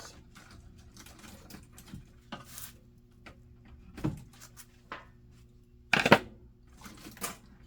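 Irregular clicks, scrapes and knocks of hand work on low-voltage alarm wire with a sharp tool, the loudest knocks about four and six seconds in, over a faint steady low hum.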